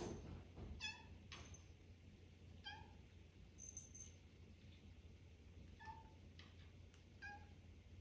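A kitten mewing faintly: four short, high-pitched mews spaced a second or more apart.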